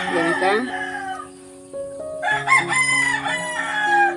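Roosters crowing: one long crow fades out about a second in, and after a short lull another begins a little past the two-second mark.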